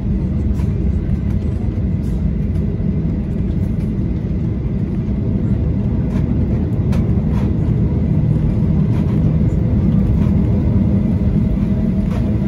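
Cabin noise of a Boeing 737-800 taxiing: a steady low rumble from its CFM56 turbofan engines at taxi power and the wheels rolling on the taxiway, with a few faint clicks.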